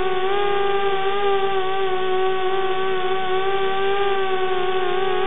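Eachine Racer 250 quadcopter's brushless motors and propellers whining steadily in flight, the pitch wavering slightly as the throttle changes.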